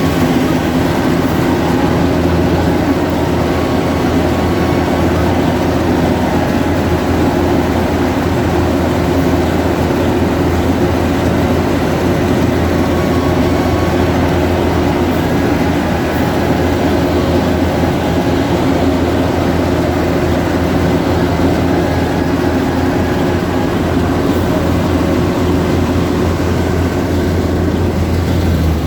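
Yanmar AW70V combine harvester running steadily at a constant engine speed, a loud unchanging drone.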